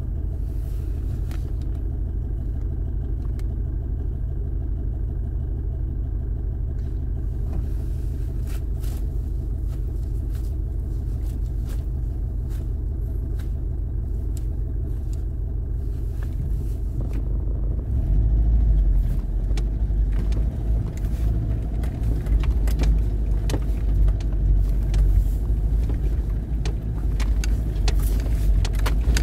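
Four-wheel-drive vehicle's engine running steadily at low revs while it sits almost still on a rocky trail. About eighteen seconds in it gets louder and rougher as the vehicle crawls up over the rocks, with scattered knocks and clatters from the stones under the tyres.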